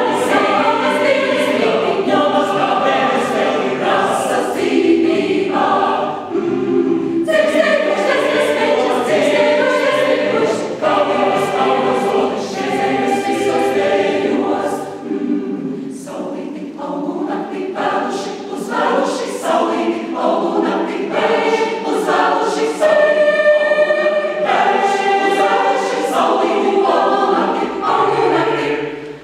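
Mixed choir of men's and women's voices singing a Latvian choral song, with short breaks between phrases.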